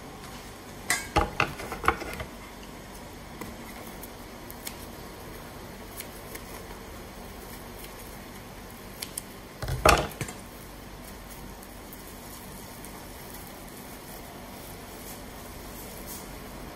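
A plastic spoon and scissors clinking and knocking against a stainless steel mixing bowl while fried tofu puffs are emptied: a quick run of small taps about a second in, and one louder knock near the middle.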